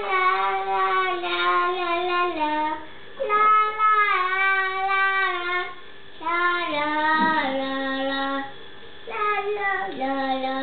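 A toddler girl singing a wordless "la la la" tune in four phrases with short breaths between them, each phrase stepping down in pitch toward its end.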